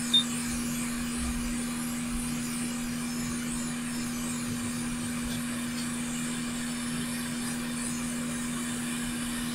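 Hot air rework station blowing steadily from its handpiece, a constant airy hiss with a steady hum from its blower, heating a connector's solder to desolder it. A short high beep sounds just after the start.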